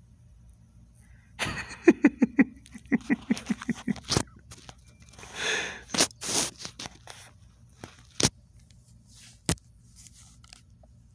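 A man chuckling in a quick run of short breathy 'heh' sounds, followed by a breath and a few sharp clicks.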